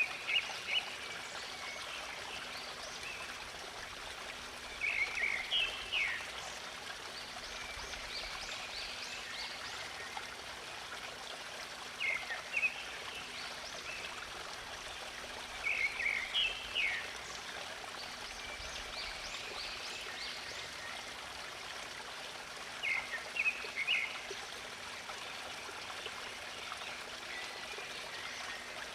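Stream water running and trickling steadily, with a songbird calling over it in short phrases of a few quick chirps, five times, roughly every five to seven seconds.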